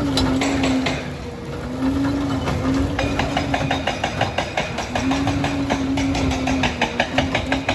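Liebherr 746 crawler dozer running, its drive giving a steady whining tone that comes and goes. From about three seconds in, the steel tracks clatter in a rapid, even run of clanks as the machine travels.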